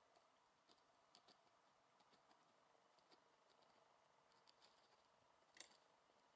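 Near silence, with a few faint, scattered small clicks, one slightly stronger near the end.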